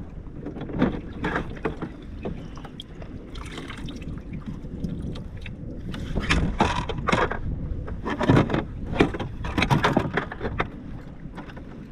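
Irregular knocks, scuffs and rattles of handling on a plastic kayak, busiest in the second half, over steady wind rumble on the microphone.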